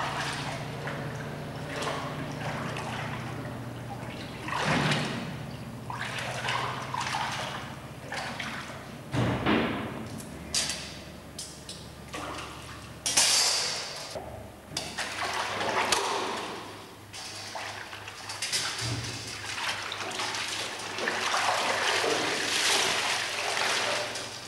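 Whey sloshing and splashing in a copper cheese vat as the curd is gathered by hand and with a cloth drawn through it, with irregular swishes and streams of running liquid.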